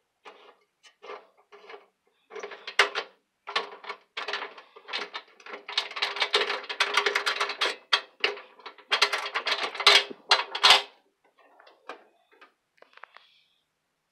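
Close handling noise: dense rattling, clicking and scraping of a camera rubbing against plastic traffic signal housings, loudest from about two to eleven seconds in.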